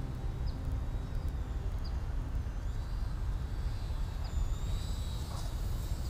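Wind rumbling on the camera microphone outdoors, a steady low buffeting. A few faint, short high chirps are heard about every second and a half.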